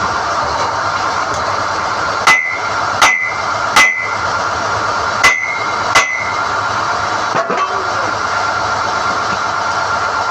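SDH-1600 core drilling rig running steadily while NQ drill rods are pulled from the hole. Five sharp, ringing steel-on-steel clanks come between about two and six seconds in.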